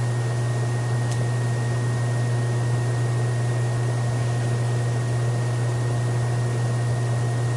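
Steady low hum with an even hiss over it, constant background noise with no change in level; one faint click about a second in.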